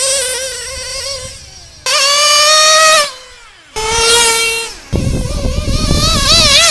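Small nitro RC car engine revving high in several bursts of about a second each, the pitch wavering up and down between blips. From about five seconds in, a rough low rumble joins the engine note.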